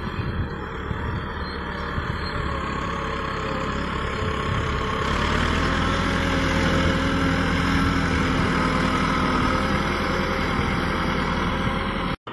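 Massey Ferguson tractor's diesel engine running as its front blade pushes a load of sand. The engine steadies and grows louder about five seconds in, and the sound cuts out briefly near the end.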